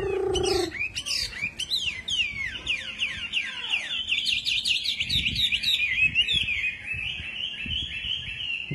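Chinese hwamei singing. A low whistled note ends just after the start, then comes a run of quick down-slurred whistles, turning into a fast, high trill from about halfway through.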